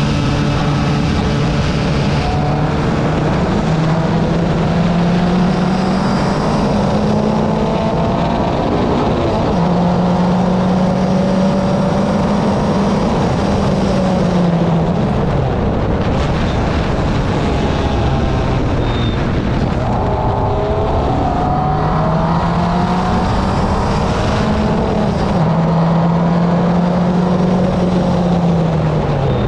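Car engine running while driving, its pitch climbing in steps and dropping back several times as it accelerates and eases off, over steady road noise.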